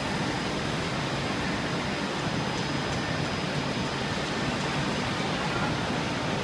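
Table-leg sanding machine running steadily, its motors and sanding heads making an even, continuous noise as a curved wooden table leg is fed through its rollers.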